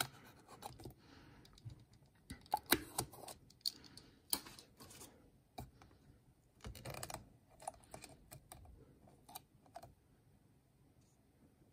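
Utility-knife blade slicing and tearing the foil seal on a plastic motor-oil bottle: irregular clicks, scrapes and crinkles of thin foil, thinning out near the end.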